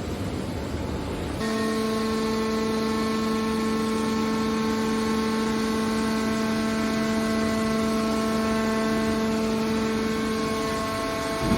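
Hydraulic metal scrap baler running: a noisy rush, then about a second and a half in a steady pitched hum sets in and holds.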